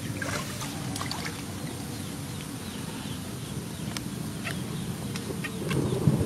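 Shallow water lapping and trickling, with a steady low rumble and scattered faint ticks and drips. A louder low rumble swells near the end.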